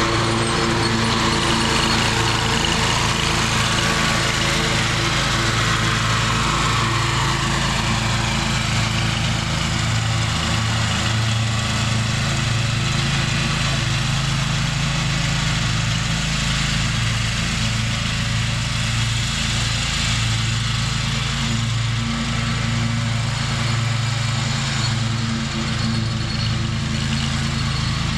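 Scag zero-turn mower engine running steadily while mowing, with a constant low hum. Its higher hiss fades over the first several seconds as the mower moves away.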